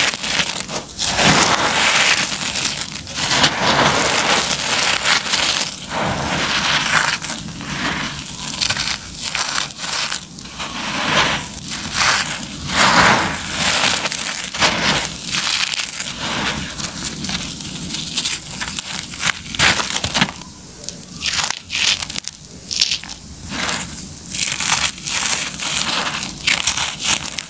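Bare hands crushing dry, crumbly lumps of concrete: a dense run of gritty crunching and crumbling as grit and powder pour down. In the last several seconds the crunches come more spaced out, with short gaps between them.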